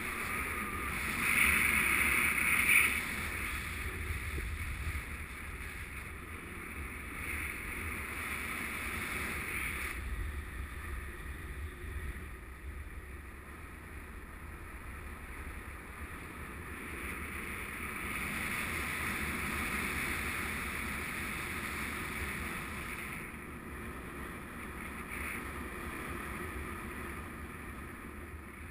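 Airflow buffeting the microphone of a paraglider's camera in flight: steady wind noise with a low rumble, louder for a moment about two seconds in.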